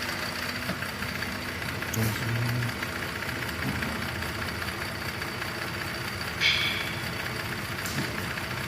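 Cadillac SRX's 3.6 V6 idling with a misfire that the owner traces to an intermittent fault on the cylinder 1 injector. A couple of light clicks and one short high chirp about six and a half seconds in.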